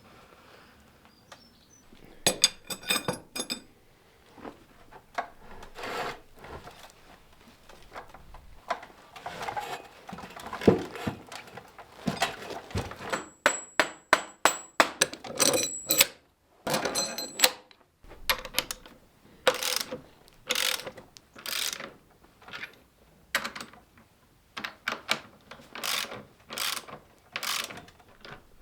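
A ratchet being worked in repeated strokes, irregular at first with some sharp metallic clicks, then settling into a steady rhythm of about one stroke a second.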